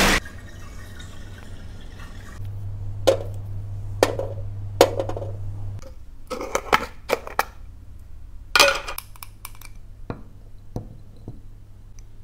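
Handling noises of a hookah and a shisha tobacco jar: scattered short clicks and knocks of glass and plastic. A steady low hum runs for about three seconds in the first half.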